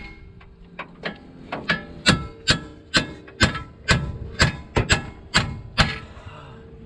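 Hammer blows on a stuck steel steering part, about a dozen ringing strikes at roughly two a second, stopping near the end. The part is not giving: it is not going down.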